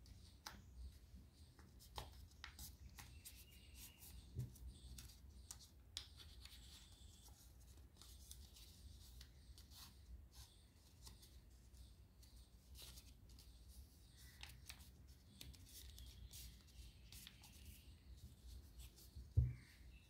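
Faint crinkling and crackling of origami paper being folded and creased by hand, with scattered small clicks throughout. A soft thump comes near the end.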